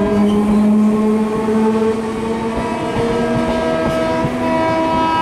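Indian Railways WAP4 electric locomotive's air horn sounding one long, steady multi-tone blast as the train approaches at speed, over the low rumble of the train on the rails.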